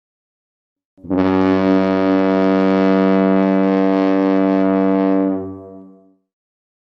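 Large ship's horn sounding one long, steady blast of about four seconds, a low tone with many overtones, starting about a second in and dying away over the last second.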